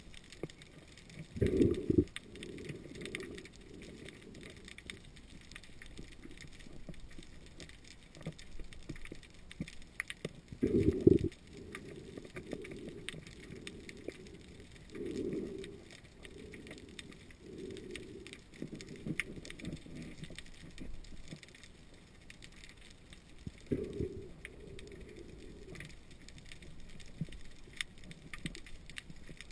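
Underwater sound: a constant crackle of small clicks and scrapes, with muffled low whooshes, the loudest about 1.5 s in, about 11 s in and near 24 s in, and a run of smaller ones in between.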